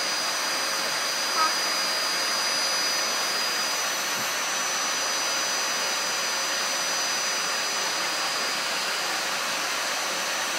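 Vacuum cleaner running steadily, a constant rushing hiss with a high whine over it.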